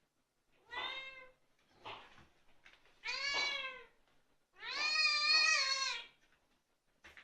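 Domestic cat meowing several times. The calls get longer and louder, and the last one is held for about a second and a half.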